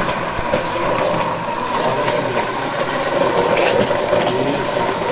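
Small electric kitchen appliance motor running steadily, a loud whirr with a steady whine in it, as food is processed for a ground-beef filling.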